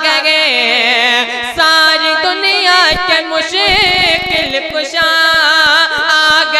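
A boy singing a naat in a high voice, drawing the melody out in long, wavering, ornamented phrases.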